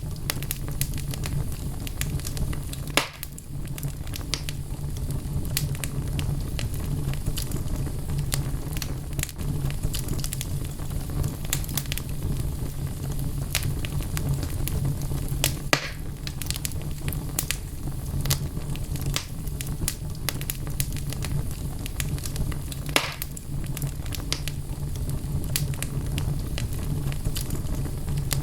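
Wood fire burning in a fireplace: a steady low rumble of flames with constant crackling of the logs and a few louder pops, about 3, 15 and 23 seconds in.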